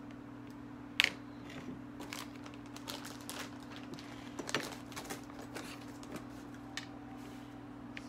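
Irregular light taps and clicks of fingers typing on a device, with a sharper click about a second in, over a steady low hum.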